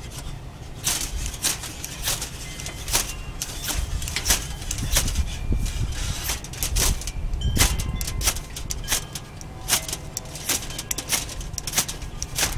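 Ferro rod fire starter struck again and again, with short, sharp rasping scrapes about one or two a second, trying to throw sparks into shredded fire-stick tinder. Wind rumbles on the microphone underneath.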